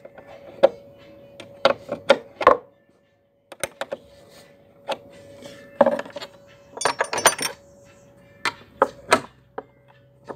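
Metal hand tools, spanners, clinking and knocking together as they are handled, in irregular sharp clicks with a cluster of ringing clinks about seven seconds in. A faint steady hum runs underneath.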